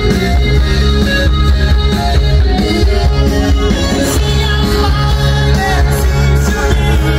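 Live rock band playing loudly over a PA system: electric guitar, heavy bass and drums, with singing.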